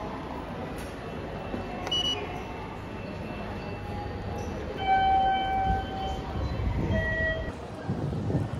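Train station concourse ambience with a steady low rumble, passing through an automatic IC-card ticket gate: a short high electronic beep about two seconds in, then louder electronic chime tones around five and seven seconds in.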